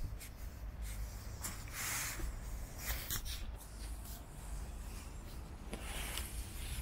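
Quiet outdoor ambience: a steady low rumble with faint rustling and a few small clicks, no speech.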